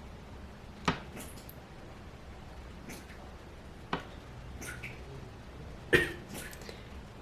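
Three sharp clicks or knocks, about a second, four seconds and six seconds in, the last the loudest, with a few fainter ticks between them, over a low steady background noise.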